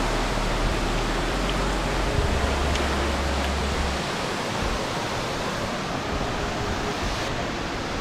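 Kookal waterfall's falling water rushing close by in a steady, even wash of noise. A low rumble sits under it for the first four seconds, then stops.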